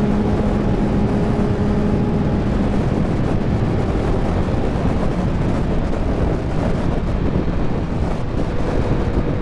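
Honda CBR1000's inline-four engine running at a steady speed under loud, even wind noise on the microphone, with no revving; a steady engine tone fades about three seconds in.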